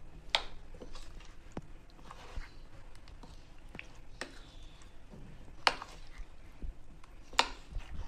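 A metal spoon stirring raw potato cubes through a thick batter in a ceramic dish: soft wet squelching with scattered clinks of the spoon against the dish, three of them sharp and loud, one just after the start and two in the second half.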